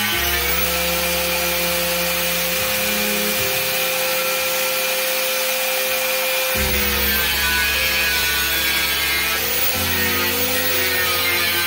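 Angle grinder running with its disc grinding the chipped plywood edge of a skateboard deck, a steady harsh grinding noise over the motor's whine. The whine sags in pitch about seven seconds in and wavers near the end as the disc is pressed into the wood.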